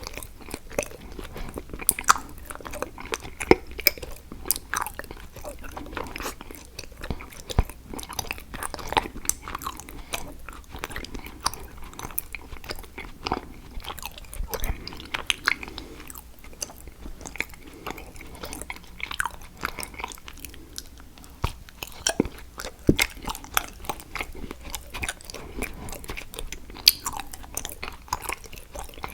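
Close-miked biting and chewing of a chocolate picture frame: irregular crisp crunches and clicks, several a second.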